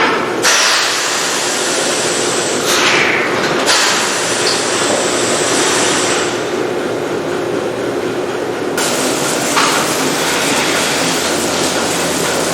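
Dairy barn milking equipment running: a steady low hum with a hiss that switches abruptly between louder and quieter every few seconds.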